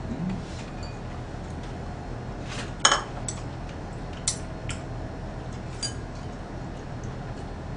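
Chopsticks and a fork clinking against bowls and plates while eating: a few scattered sharp clinks, the loudest about three seconds in.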